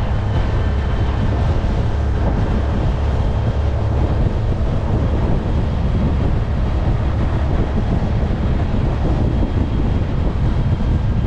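Small aluminium tinny running under outboard power across the water: a loud, steady rumble of motor, hull and water, with wind on the microphone.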